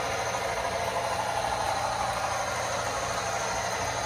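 Lionel HO scale model locomotive's onboard sound system playing steady engine sounds through its small speaker as the train runs around the track.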